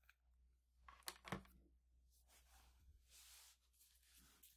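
Near silence, broken about a second in by two faint clicks as a plastic power-supply brick and its cable are handled and set down on a wooden board.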